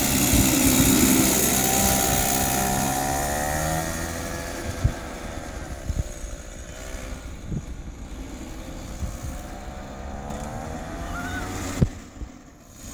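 Small single-cylinder engine of a kid's go-kart running, loud and close at first, its pitch rising and falling with the throttle. It fades as the kart drives off, then grows again with a rising pitch as it comes back around near the end.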